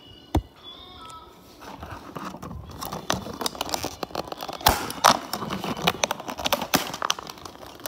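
Thin clear plastic cup and lid being handled and worked open: a sharp knock at the start, then steady crackling, scraping and clicking of plastic, with a few loud snaps near the middle.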